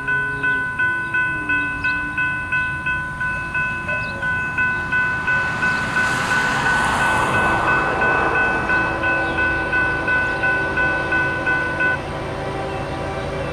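Railroad grade-crossing bell ringing rapidly, about two and a half strikes a second, then cutting off near the end while the gates stay down. Underneath, an approaching freight train's rumble builds, with a rushing swell about halfway through.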